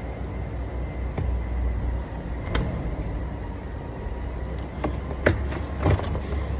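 Plastic door trim panel being pushed and knocked into place on a pickup's door: a few sharp clicks and knocks, one about halfway and three close together near the end, over a steady low rumble.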